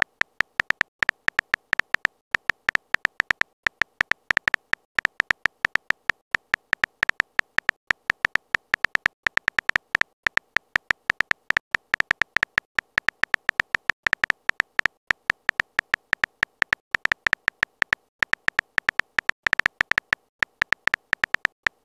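Texting Story app's keyboard sound effect: rapid, irregular short clicks, one for each key tap as a message is typed out.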